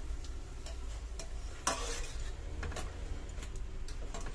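Puris deep-frying in hot oil in a kadai, sizzling steadily, while a wire-mesh skimmer scrapes and clicks against the pan as it lifts them out, with a sharper clink a little under two seconds in.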